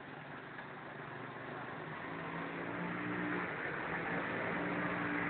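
A motor vehicle engine running with a steady hum, growing steadily louder as it comes closer, over street noise.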